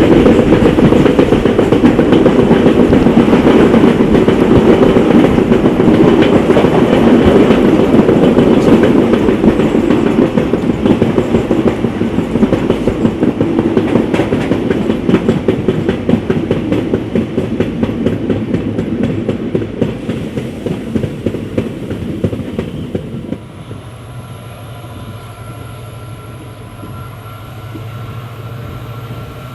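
Passenger train running on the line, its wheels clattering over the rails. The loud rumble eases gradually, then drops sharply about three-quarters of the way through to a quieter, steady hum.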